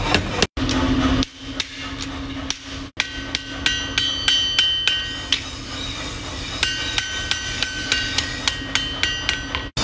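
Hand hammer striking a red-hot steel knife blade on an anvil, about three blows a second, each leaving a ringing metallic tone. A steady hum lies under the first few seconds, and the sound cuts off abruptly twice where takes are joined.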